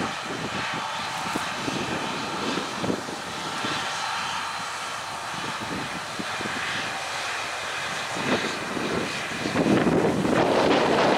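Diesel engine of a John Deere eight-tyred four-wheel-drive tractor running steadily under load as it pulls an air seeder, heard from a distance. Wind buffets the microphone from about nine and a half seconds in, louder than the engine.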